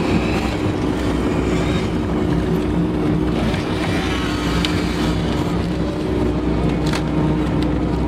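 Case skid steer's diesel engine running steadily, heard from inside the cab, with a steady droning tone and a few faint clicks in the second half.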